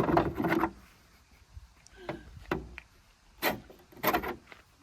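Four separate knocks and clanks of car body panels being handled, spaced over a couple of seconds.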